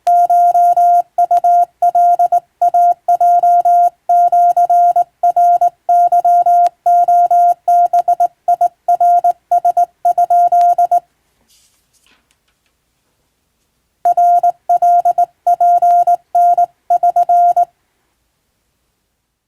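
Hand-keyed Japanese (wabun) Morse code sent as a single-pitch beep switched on and off in dots and dashes. It breaks off for about three seconds a little past the middle, sends one more short group, and stops near the end.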